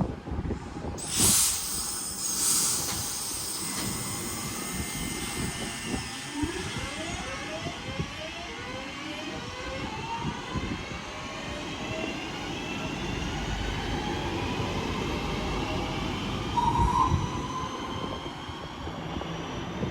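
Class 323 electric multiple unit departing, its traction motors whining in several tones that rise in pitch as it accelerates away.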